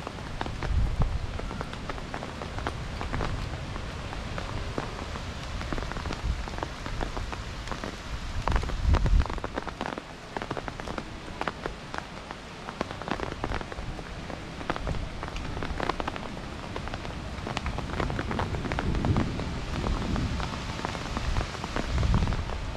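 Steady rain falling, with many sharp individual drop hits. Now and then a low rumble of wind gusts on the microphone.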